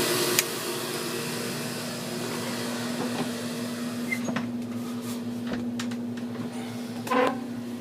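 Steady hum of a yacht's running machinery with a constant low tone. A sharp click about half a second in, after which the hiss drops away, then a few light knocks and a short louder sound near the end.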